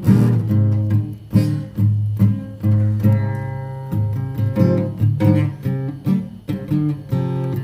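Instrumental music: an acoustic guitar playing chords, each note struck with a clear attack and left to ring.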